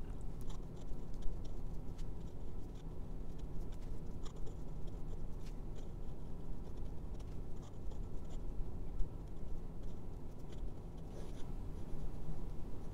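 Jinhao X850 fountain pen's fine steel nib scratching softly across notepad paper as lines are written in cursive, with scattered small ticks as the nib lifts and touches down. A faint steady hum sits underneath.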